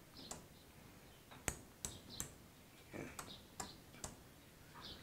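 Relays of a 12 V 4-channel Bluetooth relay module clicking as they switch from taps in a phone app: about seven short, sharp clicks, several in quick runs of three.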